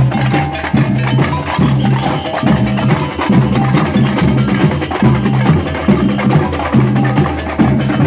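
A samba drum band (batucada) playing loudly. Deep metal-shelled surdo bass drums beat a steady repeating rhythm under quick, dense strokes from smaller drums.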